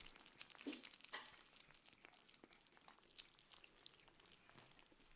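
Kittens eating wet cat food from small plates: faint, scattered wet chewing and smacking clicks, with a slightly louder click under a second in.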